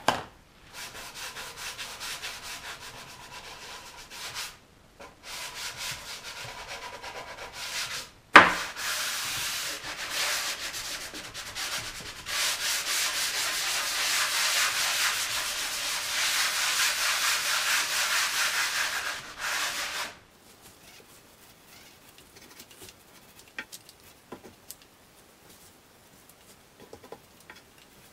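Hand sanding a painted wooden table base between coats of paint: a scratchy rubbing in spells, the longest and loudest running from about eight seconds to about twenty seconds. A single sharp knock comes at about eight seconds, and only faint ticks follow the sanding.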